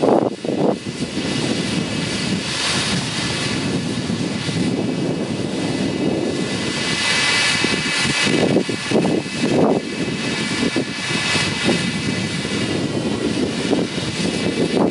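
Corn harvester running steadily: a broad mechanical rumble with a whine of several steady high tones over it, and a few uneven louder surges.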